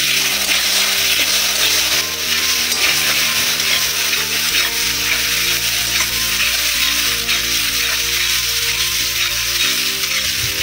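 Potatoes and spices sizzling in hot oil in a black kadai, stirred and scraped around with a flat metal spatula: the kashano stage, the spices frying into the potatoes before water is added.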